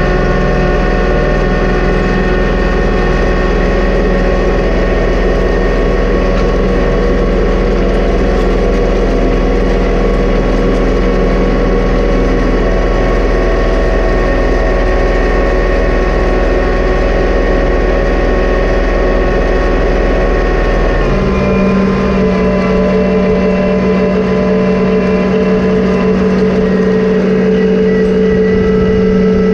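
John Deere 2038R compact tractor's diesel engine running steadily under load while pulling a chain harrow across pasture. About two-thirds of the way through, the engine note changes, its deepest rumble dropping away and a higher steady hum taking over.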